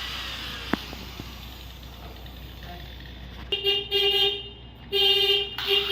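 A vehicle horn honks three times, a longer blast followed by two shorter ones, over a steady background hiss. A single sharp click comes under a second in.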